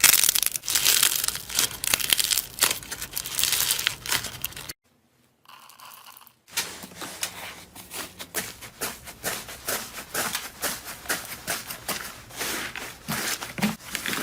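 Slime being squeezed and pressed by hand, giving a dense crackling of many small pops and crinkles. It breaks off for about two seconds nearly five seconds in, then resumes as sparser, separate crackles.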